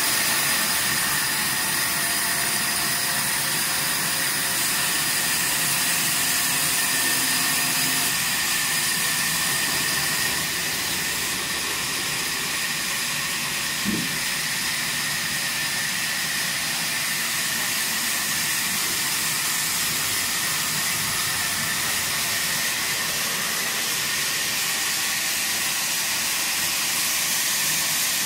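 Sawmill machinery running steadily: a continuous hiss with a steady high-pitched whine, and a single brief knock about halfway through.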